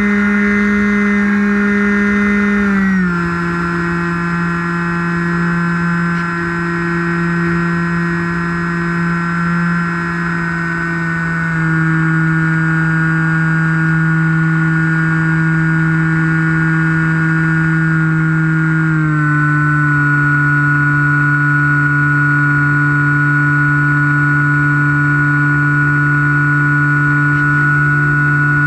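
Electric motor and propeller of a Skywalker FPV model plane in flight, heard from its onboard camera: a steady buzzing whine with a hiss of rushing air beneath. Its pitch steps down three times, about 3, 11 and 19 seconds in, as the throttle is eased back.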